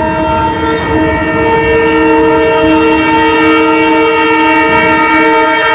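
Twin WDM3D diesel locomotives sounding their air horns in one long, loud, unbroken blast, several tones held together as a chord, over the rumble of the passing train.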